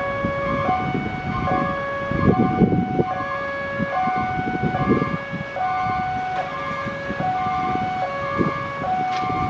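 Railway level-crossing warning siren, newly fitted, sounding a steady two-tone hi-lo alternation and switching pitch a little under once a second, over the rumble of passing vehicles.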